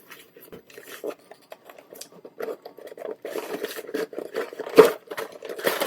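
Takeout food packaging being handled and opened: scattered rustling, scraping and small clicks, with one sharper knock about five seconds in.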